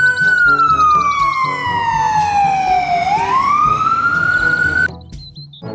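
Ambulance siren wailing: the pitch climbs, sinks slowly over about three seconds, climbs again, then cuts off suddenly near the end.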